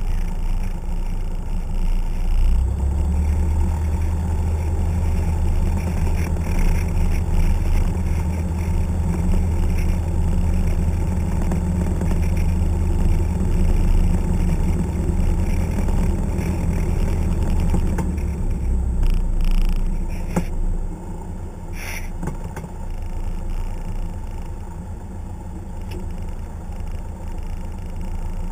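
Single-engine light aircraft's piston engine and propeller running at low power on the ground, heard from inside the cockpit as a steady drone with a deep hum. About twenty seconds in the engine note drops and gets quieter, with a few short clicks.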